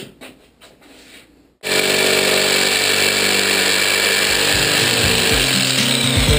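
Jigsaw cutting 3/8-inch plywood along a curved line, starting suddenly about a second and a half in and then running steadily; before it, a few light knocks.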